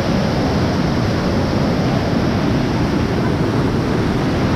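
Fast-flowing floodwater rushing through a river sluice gate, a loud, steady rush.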